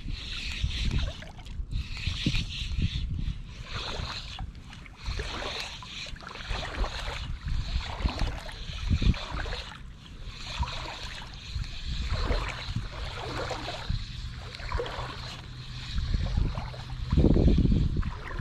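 Shallow saltwater sloshing and splashing in uneven pulses as someone wades through it, with wind rumbling on the microphone.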